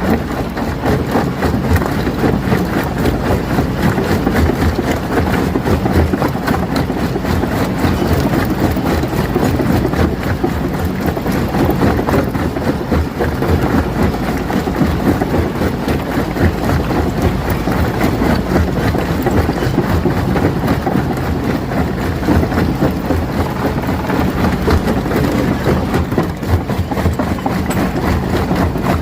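Rock crusher working: its engine runs steadily under a constant, irregular clatter of knocks and cracks as stones are broken.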